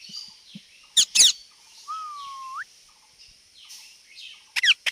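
Parrot calling: a quick pair of sharp falling chirps, then a drawn-out whistle that holds its pitch and sweeps up at the end, then another pair of sharp chirps near the end.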